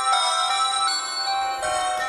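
BenQ A500 clamshell phone's built-in polyphonic ringtone playing: a melody of steady synthesized notes, each held about half a second.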